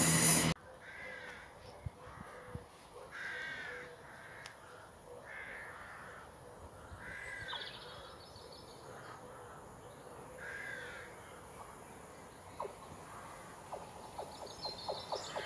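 Crows cawing: about six harsh, separate calls spread over several seconds. Near the end comes the faint, building rattle of an approaching train's wheels on the rails.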